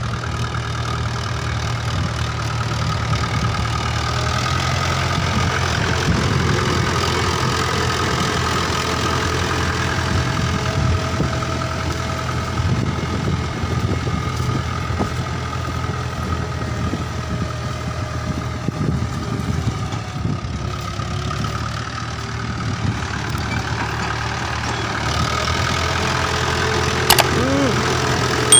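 Mahindra 475 DI tractor's four-cylinder diesel engine running steadily under load while pulling a disc harrow. A short click near the end.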